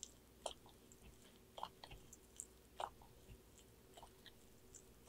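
Sulcata tortoise biting and chewing strawberry and kale leaves: faint, irregular crunching clicks of its beak, about two a second, the strongest near the middle.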